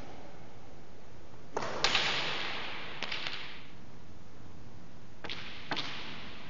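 Hard racquets ball cracking off the racquet, walls and floor of a racquets court, each sharp crack followed by a long echo in the bare-walled court. The loudest group of cracks comes about one and a half seconds in, with smaller clicks a second later and again near the end.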